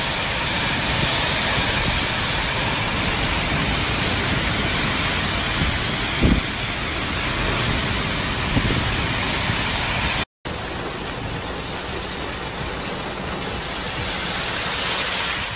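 Heavy rain pouring down in a thunderstorm, a dense steady hiss, with a short low thump about six seconds in.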